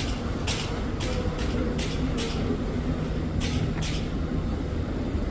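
Construction-site noise: a steady low machine rumble with short, sharp strokes repeating irregularly, roughly twice a second.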